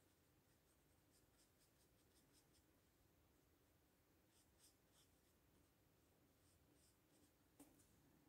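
Very faint scratchy strokes of a thin watercolour brush on paper, in short irregular dabs, with one small click near the end.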